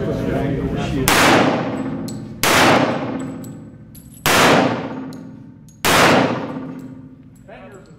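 Four pistol shots about one and a half seconds apart, each followed by a long ringing tail echoing off the concrete walls of an indoor range.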